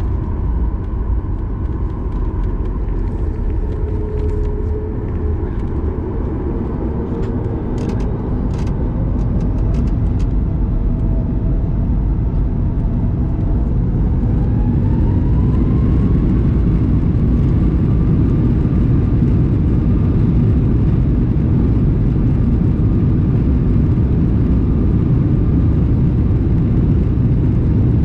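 Boeing 737 MAX 9's CFM LEAP-1B engines spooling up for the takeoff roll, heard from inside the cabin. A steady low rumble grows louder, and a whining tone rises in pitch about halfway through, then holds steady.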